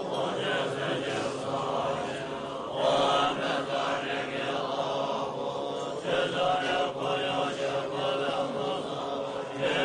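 Tibetan Buddhist chanting: several voices chant together in a steady, sustained flow, swelling louder a few times.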